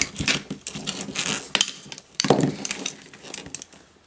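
Hard plastic printer parts clicking, knocking and scraping as a press-fit ink-tube connector is worked loose from an inkjet print head, with a longer scrape about two seconds in.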